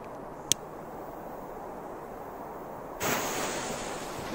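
A single sharp click, then about three seconds in a firecracker fuse catches and hisses: a sudden sizzle that slowly fades, over a steady low rush of outdoor air.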